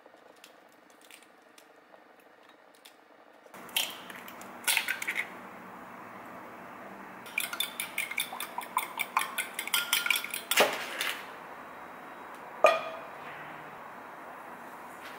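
Metal spoon clinking against a glass bowl while beating eggs: a few separate taps, then about three seconds of quick, regular clinks. A single louder clank follows near the end.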